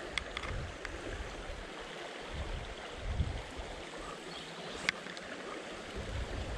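River water running over a shallow, rippled riffle, a steady rushing, with an uneven low rumble of wind on the microphone and a sharp click about five seconds in.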